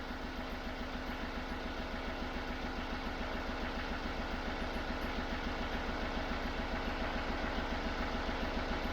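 Chevrolet Tracker's diesel engine idling steadily at operating temperature, with an even rapid pulse.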